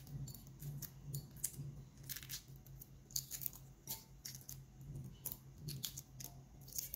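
Shell being peeled off a hard-boiled egg by hand: quiet, irregular little crackles and snaps as the cracked shell and its membrane come away.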